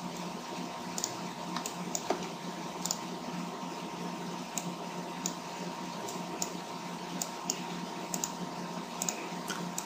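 Irregular clicks of a computer mouse and keyboard, about one every second, over a steady low hum.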